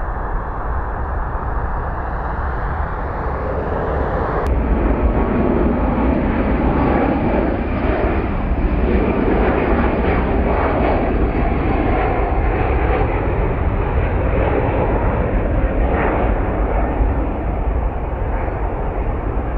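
Jet airliner passing close by. Its engine noise is a steady rush with a deep rumble that swells about four seconds in and stays loud.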